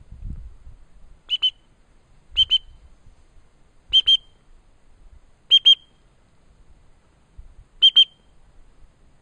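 Hunter's dog whistle blown in five short double blasts, a high, sharp pip-pip each time, spaced one to two seconds apart.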